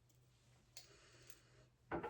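A few quiet clicks followed by a louder knock near the end, over a faint steady hum.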